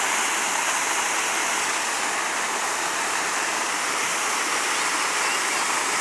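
Water falling down an artificial rock waterfall and splashing into the pool below: a steady, unbroken rush.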